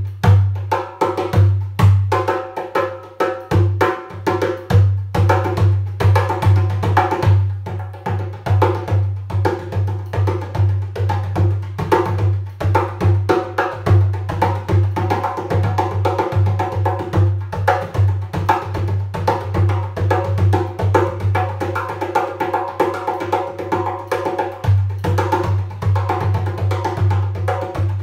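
Small djembe played with bare hands in a fast, unbroken rhythm: sharp slaps and tones over a deep, booming bass resonance from the drum's shell.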